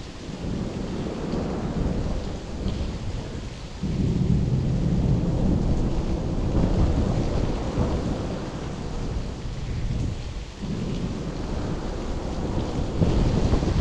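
Heavy rain falling steadily, under a low rumble that swells and fades, growing louder about four seconds in and dipping briefly near ten seconds.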